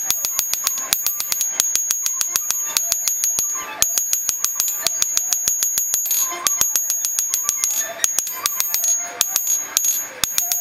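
Hand hammer striking a red-hot San Mai blade on a steel anvil in a fast run of blows, about five a second, each with a high metallic ring. The blows pause briefly about three and a half seconds in and again around six seconds.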